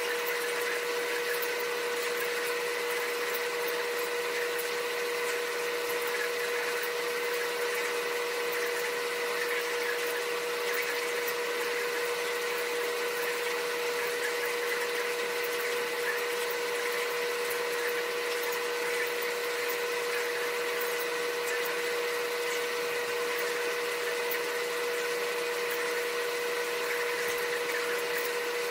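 Steady hum of a running electric motor, with one constant pitched tone that holds throughout.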